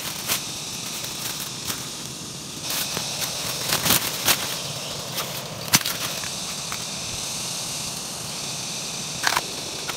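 Scattered sharp snaps and crackles of dry leaves and plant stems being handled and broken in forest undergrowth, over a steady high hiss of forest ambience. The sharpest snaps come about four seconds in, again near six seconds, and near the end.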